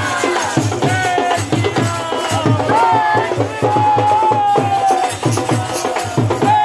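A sung devotional song: a singer's held, gliding melody over a steady drum beat of about two beats a second.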